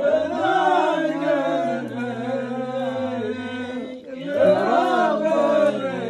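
A man's unaccompanied voice chanting verse in long, drawn-out melismatic phrases, the pitch gliding up and down on held vowels. The phrase breaks off about four seconds in and a second one begins right after.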